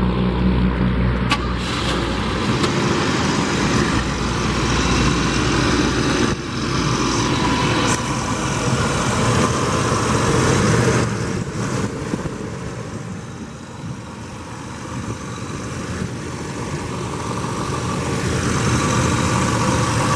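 1987 Cadillac Brougham's 307 cubic-inch (5.0 L) V8 idling steadily, heard close over the open engine bay.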